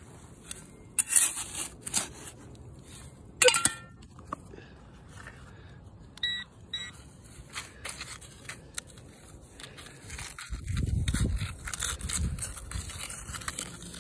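Digging into woodland soil after a metal-detector signal: scattered scrapes, crunches and knocks of a digging tool in the dirt, growing heavier and louder about ten seconds in.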